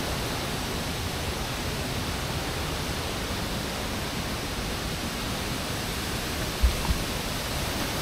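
Steady rushing of a nearby waterfall, an even hiss with no breaks. Two brief low thumps come a little before the end.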